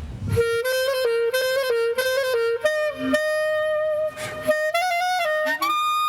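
Solo clarinet playing a melody: a run of short notes that climbs higher, ending on a long held high note near the end.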